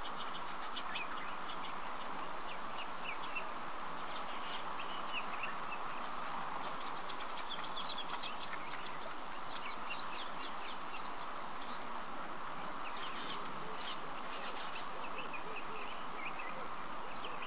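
Many small birds chirping in short high calls scattered throughout, over a steady hiss.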